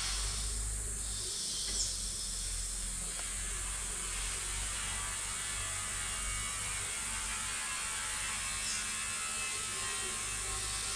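Lowland tropical rainforest ambience: a steady, high-pitched chorus of insects trilling, with a couple of very short, high chirps, one about two seconds in and one later on.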